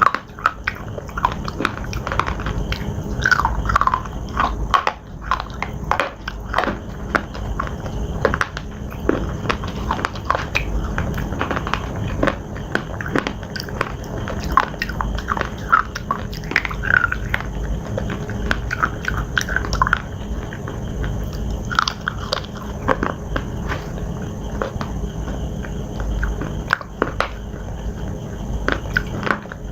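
Close-miked biting and chewing of hard slate pieces: a continuous run of sharp crunches and gritty clicks as the slate is bitten and ground between the teeth.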